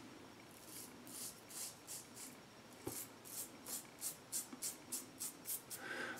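Double-edge safety razor with a Rockwell blade scraping through stubble on lathered skin in short, quick strokes, about three a second, during a touch-up pass.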